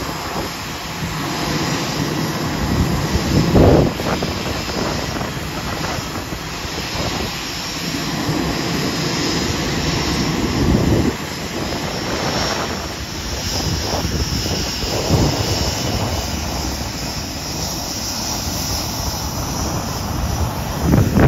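Jet engines of a Boeing 787 Dreamliner taxiing at low thrust: a steady rushing hum with a faint high whine, and a few louder low surges along the way.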